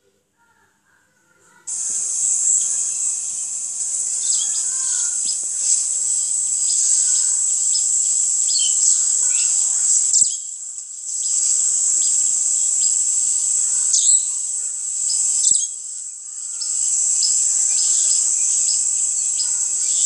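A high, continuous insect chorus, with birds chirping through it. It starts about two seconds in and breaks off briefly twice.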